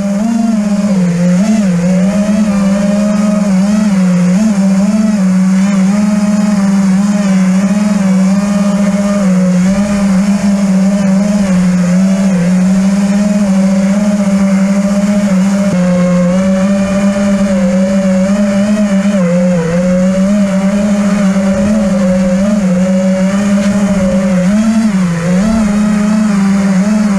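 FPV freestyle quadcopter's motors and propellers buzzing loudly in flight. The pitch holds steady but wavers and dips briefly as the throttle changes.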